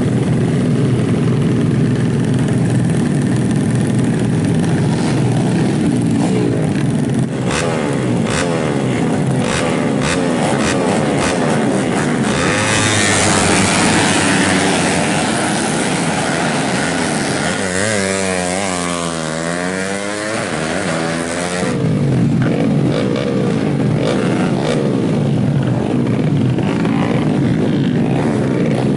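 Several tuned 125 cc four-stroke underbone race motorcycles running and revving, engine pitch rising and falling over and over, with sharp crackles in the first third. The sound gets louder and harsher for several seconds in the middle.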